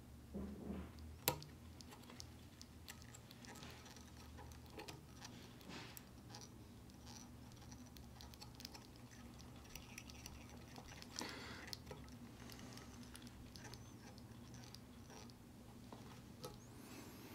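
Faint handling sounds of fly tying: tying thread scratching as it is wrapped from a bobbin over a strip of clear scud back on a hook in the vise, with light ticks and one sharp click about a second in. A low steady hum sits underneath.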